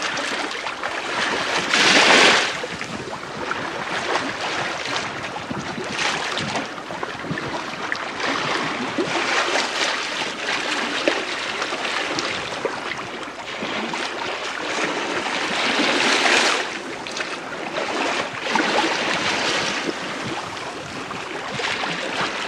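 Bow wave of the sail training ship STS Malcolm Miller washing along the hull, heard from the lee quarter while she sails in a light wind. A steady rushing wash that swells into louder surges, the strongest about two seconds in and another around sixteen seconds.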